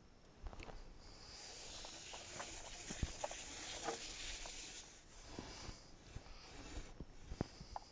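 Light knocks and taps of a long pole being handled against an aluminium boat's hull and rail, with a soft hiss lasting about three seconds in the middle.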